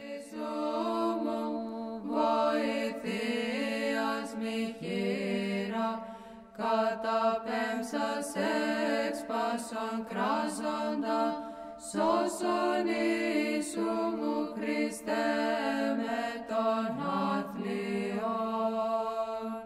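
Greek Orthodox Byzantine chant: voices sing a melody over a steady low held drone note (the ison), pausing briefly between phrases.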